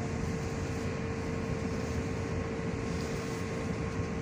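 Electric commuter train running, heard from inside the passenger car: a steady rumble with a constant hum over it.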